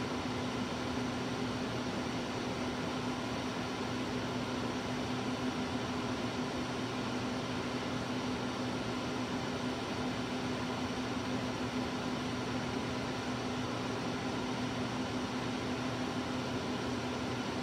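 Steady electrical hum and fan-like whir from the control cabinet of a CAMaster Cobra ATC CNC router, housing its servo drives, with a constant low hum tone that never changes.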